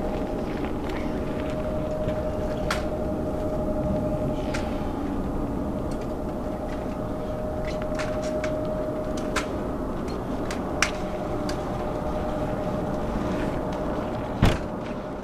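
Twin-engine jet airliner climbing away after takeoff: a steady, distant engine rumble with a steady tone held over it. Several sharp clicks are scattered through it, the loudest near the end.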